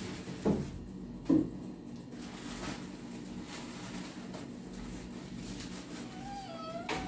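Knocks and clunks of boxes and cans being set on the wooden shelves of a pantry cabinet as it is stocked: two sharp knocks in the first second and a half, then a few lighter ones.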